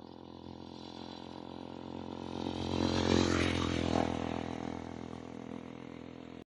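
A motor vehicle driving past: its engine grows louder to a peak about three seconds in, then fades away.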